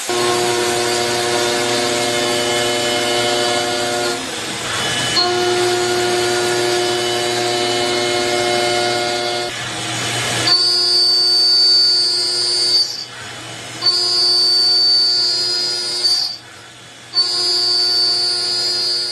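Metalworking machine tools running with steady whines made of several held tones. The sound switches abruptly to a different machine tone a few times, and a high whine is added after about ten seconds. Twice near the end the machine sound drops away briefly.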